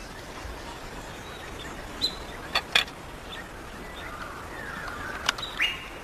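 Birds chirping briefly over a steady outdoor hiss, with a few sharp taps or clicks, two close together about two and a half seconds in and another about five seconds in.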